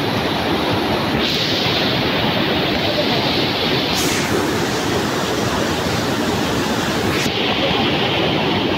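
Small forest waterfall cascading over rocks close by: a loud, steady rush of water whose hiss brightens and dulls a few times.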